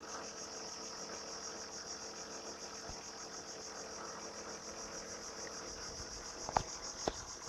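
Steady high-pitched pulsing trill of an insect chorus, with two short sharp knocks about a second before the end.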